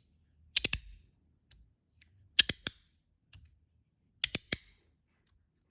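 Copper Magnus Robo fidget slider with zirconium plates and strong magnets, slid open and shut: three quick groups of about three sharp clacks, roughly two seconds apart, as the magnets snap the plates into place.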